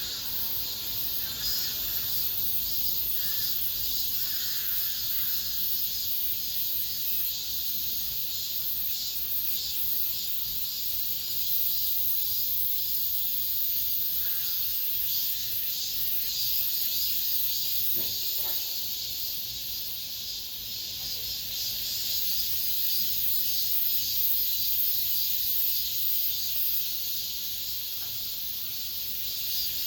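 A chorus of cicadas singing: a steady, high-pitched, continuous buzz with a slight pulsing texture.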